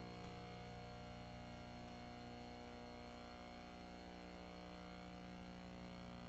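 Faint, steady electrical hum with several overtones, unchanging throughout; otherwise near silence.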